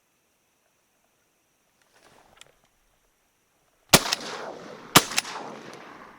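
Two shotgun shots about a second apart, fired at a duck, each with a long echo rolling off across the open marsh.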